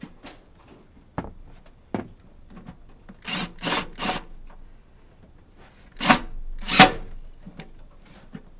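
Hand-work noises from parts and hose being handled: two sharp clicks about a second and two seconds in, then short scraping rubs, three quick ones near the middle and two louder ones near the end.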